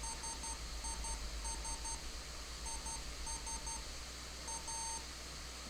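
Arduino sounding Morse code as a single steady beep tone keyed in short and long pulses, dots and dashes, spelling out part of "this is a test". There is a short pause between letter groups, and a longer gap a little before the end.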